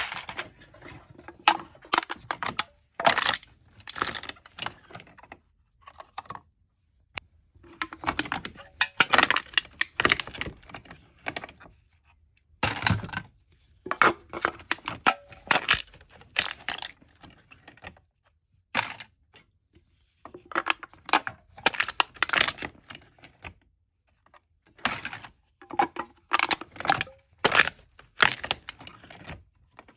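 Aluminium cans being crushed, crinkling and crackling in bursts of one to two seconds with short pauses between.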